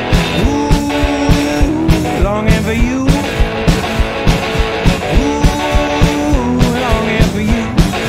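Rock music: drums keeping a steady, driving beat, with hi-hat and guitar, and a gliding melody line held over it.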